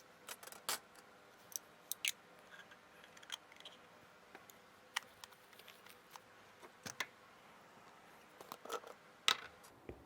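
Irregular small clicks, taps and short scrapes, like objects being handled and set down, spread unevenly with the sharpest click near the end.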